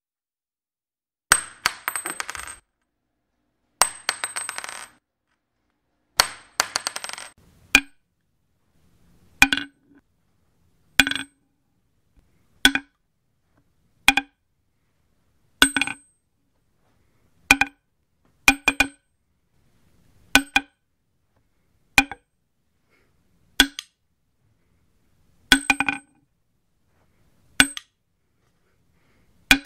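Spent cartridge cases dropped one at a time. The first few land on tile and bounce, a quick run of clinks dying away with a high ring. From about eight seconds in, each case drops onto wood: a single or double sharp clack with a short ring, repeated about every one and a half to two seconds.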